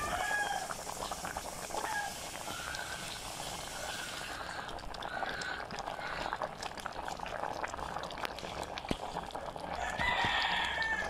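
Chickens clucking in the background, with short calls every second or so and a louder, longer call near the end, over the faint bubbling of a pot of fish soup at a boil.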